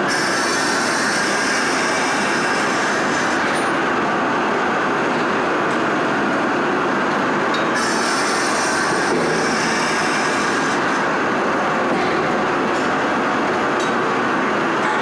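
Steady, loud mechanical din of brass hot-forging shop machinery running, with no distinct hammer or press blows standing out.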